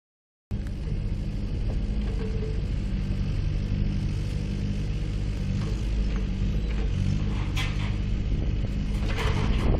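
Diesel engine of a backhoe loader running steadily under load while it digs with its rear arm, with a couple of brief sharper noises near the end.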